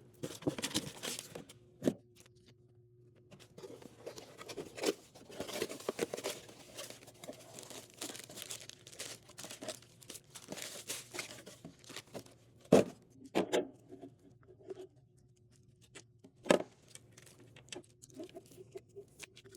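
Hands handling parts and packaging while working on a vending machine: rustling, crinkling and small clicks, with a few sharp knocks, the loudest about two-thirds of the way in.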